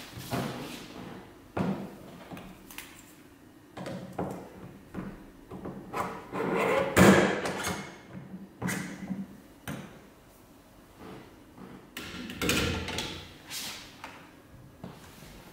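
Espresso prep handling noises: knocks, clicks and scrapes of a metal portafilter on a wooden counter as it is tamped with a Force Tamper and then locked into the espresso machine's group head. The loudest clatters come in about the middle and again near the end.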